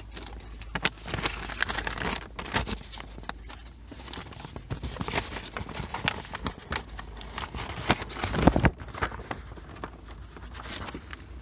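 Rummaging through papers and loose items inside a vehicle: irregular rustling and crinkling with many small clicks and knocks, and a louder clatter about eight and a half seconds in.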